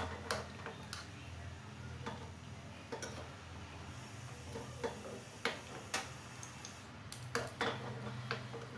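Steel spoon clicking and scraping against a small pan while cashews and almonds are stirred in hot ghee: about ten irregular clicks, over a low steady hum.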